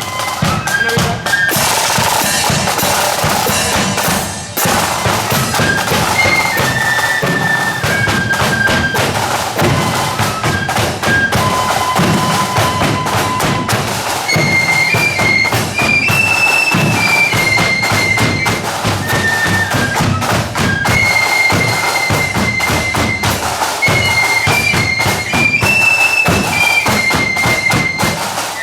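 Marching flute band playing a tune: high flutes carry the melody over a steady beat of bass drum and side drums.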